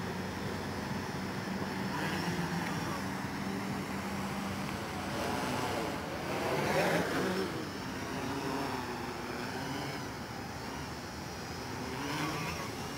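MikroKopter quadcopter's four electric motors and propellers buzzing in flight, the pitch wavering up and down as it manoeuvres, swelling loudest about seven seconds in.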